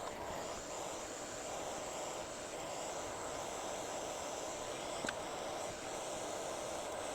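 Steady airy hiss with a faint hum and one light click about five seconds in.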